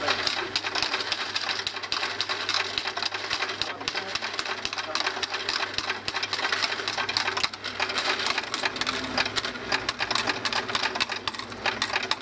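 Electric coin sorter running: its motor hums steadily under a rapid, continuous clatter of coins being counted and dropping into the sorting bins.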